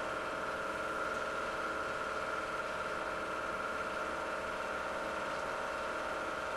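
A steady mechanical hum with a constant high whine over an even hiss, unchanging throughout.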